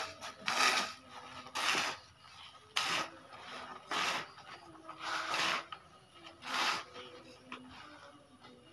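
Granular fertilizer being scooped off a plastic tarp and tipped back onto a heap. It makes a short hissing rush of pouring, scraping granules about once a second, six times, and dies down in the last couple of seconds.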